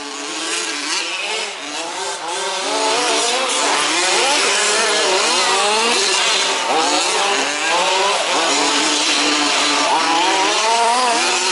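Several 1/5-scale petrol two-stroke RC trucks racing, their engines revving up and down and overlapping. The sound grows louder over the first few seconds, then stays steady.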